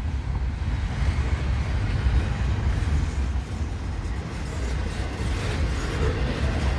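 Freight train cars rolling past at trackside: a steady low rumble of wheels on rail, with no horn or squeal standing out.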